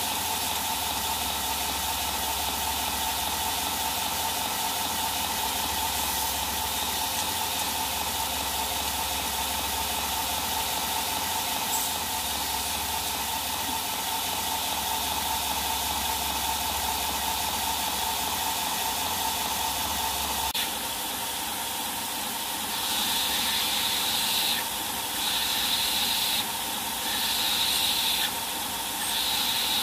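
Belt grinder running with a steady hiss and whine while a knife's pocket clip is held against the belt. Near the end come four short swells of louder grinding, one for each pass of the part against the belt.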